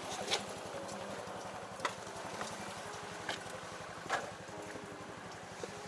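Engine idling with a fast, even low pulse, with a few sharp clicks or taps about every second and a half.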